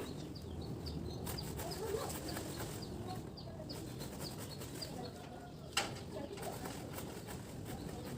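Birds chirping: short, high, falling chirps repeated a few times a second over a faint low hum, with one sharp click a little before the end.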